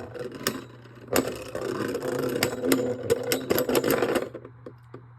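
Beyblade spinning tops whirring and clashing in a plastic stadium: a steady whirr with many sharp clicks of collisions, which stops about four seconds in as the close battle ends.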